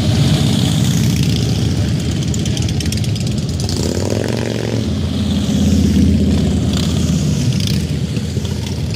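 Cruiser motorcycles passing one after another at parade pace, their engines making a steady, deep low-pitched sound. About halfway through, one bike passes close by and its engine note stands out clearly.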